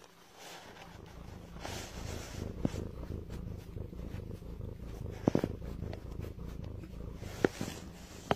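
A domestic cat purring steadily, close up, with a few sharp clicks, the loudest about halfway through and near the end.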